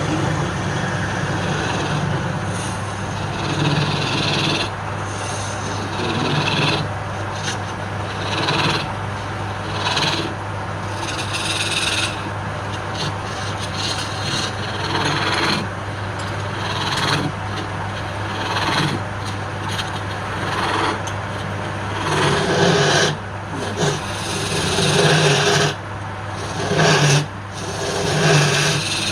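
Wood lathe running with a steady motor hum while a turning tool scrapes and cuts the spinning wood, the cutting noise swelling and fading in uneven strokes.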